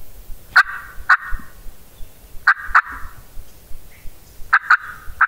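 Wild turkey gobblers gobbling: short rattling gobbles in pairs about every two seconds, with several crowding together near the end.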